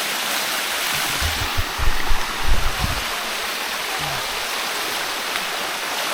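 Water of a shallow waterfall cascading over rock, a steady rushing hiss. Between about one and three seconds in, a few low thumps.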